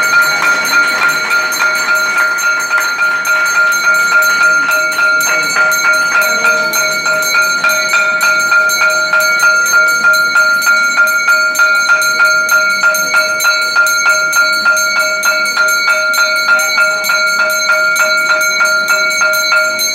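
Temple bell rung continuously for aarti, struck about four times a second so that its ringing tone never dies away.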